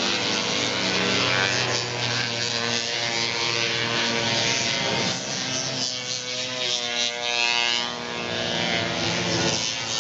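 Several single-cylinder two-stroke racing snowmobiles running at high revs together, their engine pitches rising and falling.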